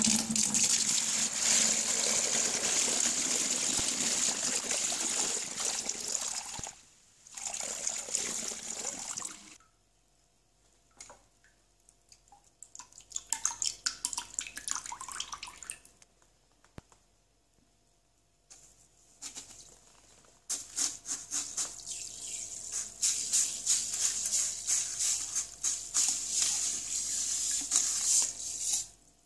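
Wort poured from a pot through a metal mesh strainer into a plastic fermenting bucket: a steady splashing pour for about six seconds, then a second, shorter pour. Later comes irregular splashing of the wort in the bucket as it is stirred with a wooden spoon.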